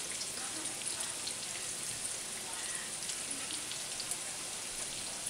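Breaded zucchini slices shallow-frying in oil in a skillet: a steady sizzle with scattered small crackles and pops.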